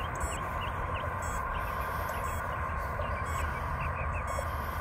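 Open-field outdoor ambience: a steady low rumble and a constant high drone, with short chirps recurring about once a second.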